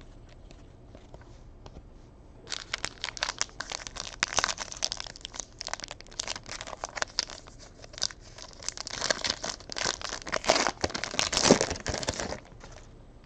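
Foil wrapper of a Panini Prizm basketball hobby pack crinkling and tearing as it is opened, a dense crackle starting about two and a half seconds in and stopping shortly before the end.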